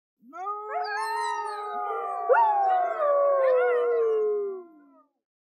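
Arctic wolves howling in chorus: several long howls overlap at different pitches. About two seconds in a new howl rises sharply and then slides slowly down, and the chorus fades out near the end.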